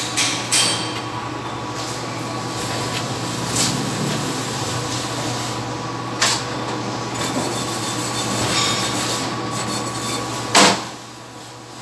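Steady hiss and hum of a welding booth, broken by a few sharp knocks of metal being handled at the work stand; the loudest knock comes near the end.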